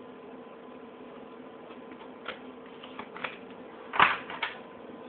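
Playing cards handled and gathered up on a wooden tabletop: a few light clicks and taps, with two louder ones about four seconds in, over a steady hum.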